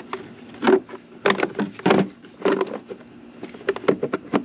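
Irregular clicks, taps and rustles of hands handling plastic parts around a vehicle fuse box, a dozen or so short sounds in uneven clusters, over a faint steady high whine.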